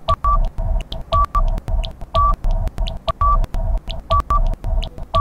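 Electronic quiz countdown-timer loop: a fast, even pulse of short beeps over a low bass thump, with a higher beep or pair of beeps about once a second.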